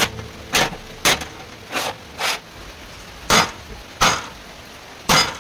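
Hammer striking metal: about eight separate blows at uneven spacing, two of them softer near the middle.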